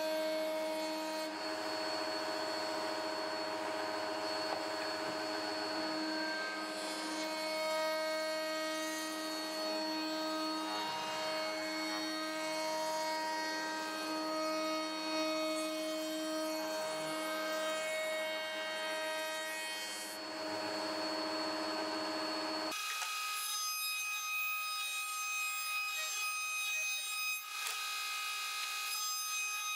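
Table-mounted router spinning at speed with a steady high whine as its bit cuts the edge of an MDF piece fed by hand. About three-quarters of the way through, the sound changes abruptly and loses its low part.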